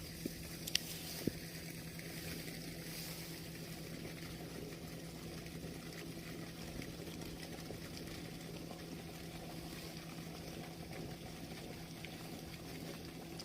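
Steady rush of water released through a seaside sluice gate, with a low steady hum under it and a couple of small clicks in the first second or so.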